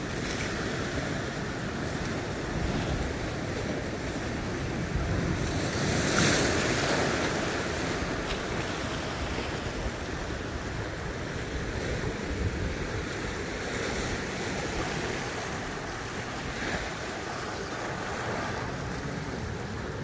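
Sea waves washing in over and around shoreline rocks, a continuous rushing wash that swells with each surge, the biggest about six seconds in. Wind buffets the microphone underneath.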